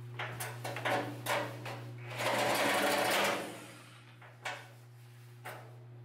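Chalk line reel being worked by hand: a run of quick clicks, then a longer rasping whir about two seconds in as the line runs on the reel, and a couple of lone clicks near the end, over a steady low hum.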